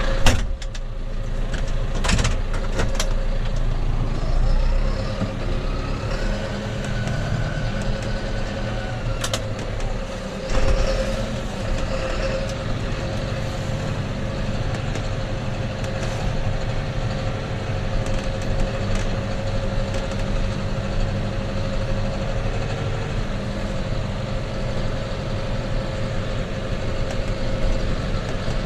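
Tractor engine running steadily, with a steady whine over it and a few sharp clicks in the first seconds.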